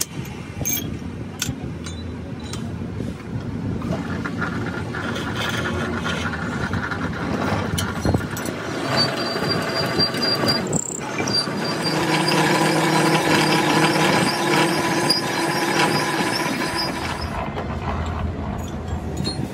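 Lathe-driven twist drill cutting a hole through the pin boss of a large Grasso compressor piston, a steady grinding cut that turns into a whine of several pitches from about halfway through. A few sharp knocks in the first seconds.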